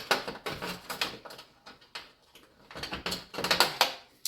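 Clicks, knocks and rattles of computer hardware being handled as an old power supply is taken out of a PC case, coming in several quick clusters.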